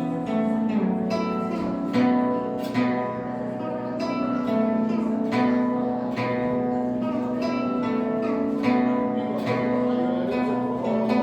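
Guzheng, a 26-string Chinese zither, played in a flowing melody of plucked notes that ring on, over sustained lower notes.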